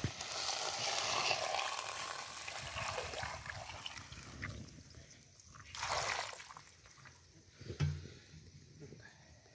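Water poured from a jug into a metal pot of peeled bananas and pumpkin, splashing onto the food and trailing off about four seconds in. Later come a brief rushing sound and a short low sound.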